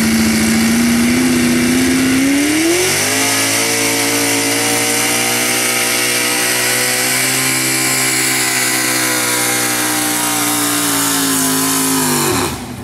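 Pulling pickup truck's engine at full throttle dragging a weight-transfer sled: the revs climb about two seconds in, hold high and steady, then drop off sharply near the end as the run finishes.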